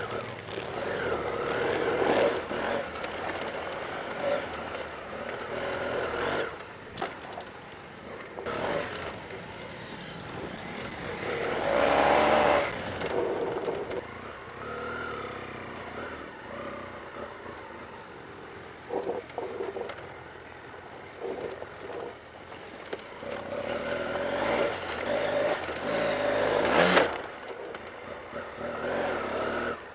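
BMW F 800 GS parallel-twin engine running under way off-road, its revs rising and falling with the throttle. Louder rushing noise swells about twelve seconds in and again near the end.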